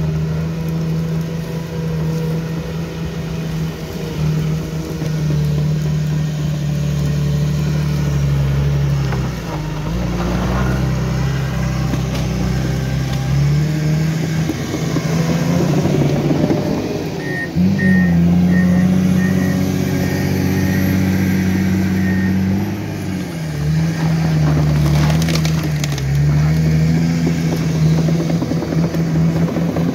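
Komatsu D61EX crawler dozer's diesel engine working under load as the blade pushes soil. Its pitch shifts several times, rising sharply just past halfway and dipping a few times afterwards.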